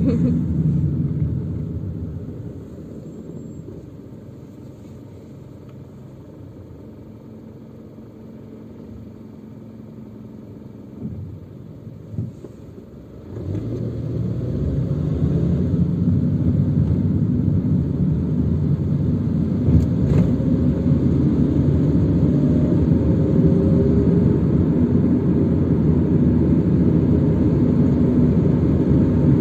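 Car engine and road rumble heard from inside the cabin while driving. It is fairly quiet for the first dozen seconds, with a couple of soft knocks, then the rumble rises sharply about 13 seconds in and stays loud and steady.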